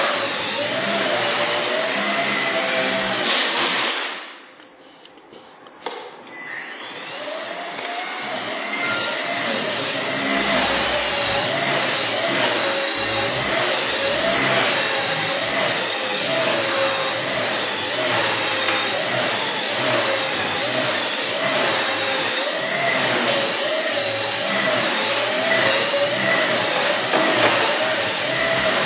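Blade Nano CP X micro collective-pitch RC helicopter's motors and rotors whining, the pitch wavering up and down with throttle. The whine cuts off about four seconds in, then spools back up with a rising pitch after a couple of seconds and runs on steadily.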